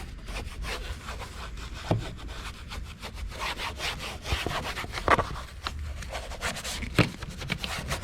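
Detail brush scrubbing protectant into the crevices of a kayak's plastic fittings in quick back-and-forth strokes, with a few sharper knocks of the brush against the plastic.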